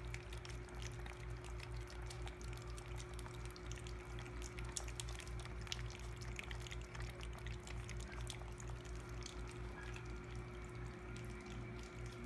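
Four young puppies lapping and smacking at soft, wet food in a shared pan: a continuous run of small wet clicks and slurps, over a steady low hum.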